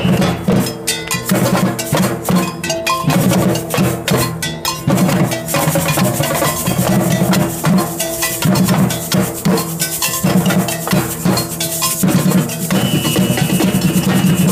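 A street percussion group playing a steady, loud groove on large bass drums and hand-held drums, with a cowbell ringing over the beat.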